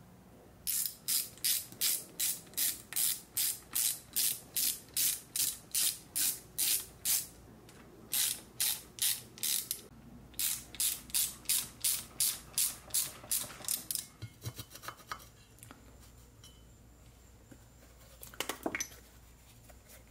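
Ratchet wrench worked in quick back-and-forth strokes, about three a second, each stroke a short rasp of pawl clicks, in three runs with brief pauses. A few small clicks follow, and there is a short rattle near the end.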